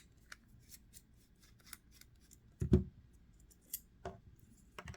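Small metallic clicks and ticks of a Torx driver working the screws out of a folding knife's clip side, with a louder knock about two and a half seconds in.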